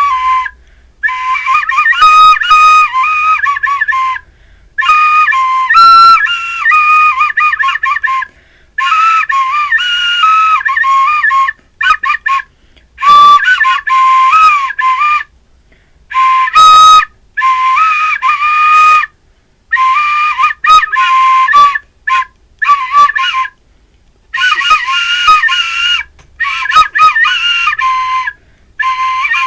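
Solo Chinese flute playing a high melody in short phrases, separated by brief pauses.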